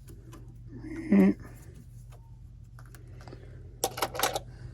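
Hand-handling of the lathe's tailstock and its clamp: scattered sharp clicks and knocks of metal and plastic parts, with a quick cluster of louder clicks near the end. A brief murmured voice sound comes about a second in.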